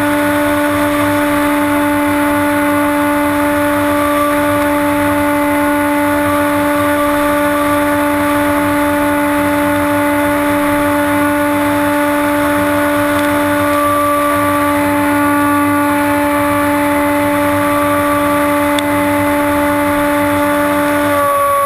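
HobbyKing Bixler RC plane's electric motor and pusher propeller running at steady throttle in flight, heard from a camera mounted on the plane: a loud, steady whine that drops slightly in pitch right at the end as the throttle eases.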